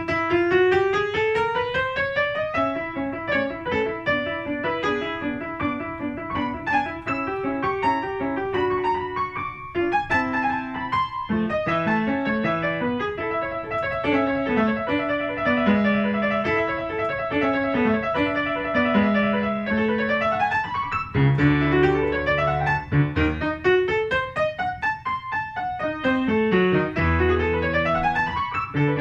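Grand piano played solo, a classical piece with fast rising and falling runs of notes. There are two short breaks about ten seconds in, and heavy low bass notes come in during the second half.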